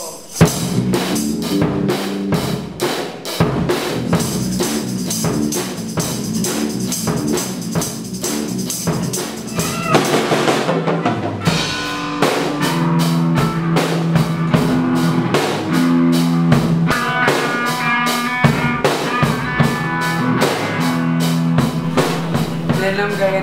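A live band jam: a drum kit keeps a steady rock beat with kick, snare and rimshots. Amplified guitar and held bass notes come in more strongly from about halfway.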